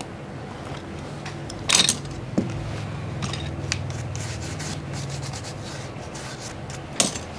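Hands handling and rubbing small phone parts on a workbench, with a few sharp clicks, one about two seconds in and another near the end, over a faint low hum.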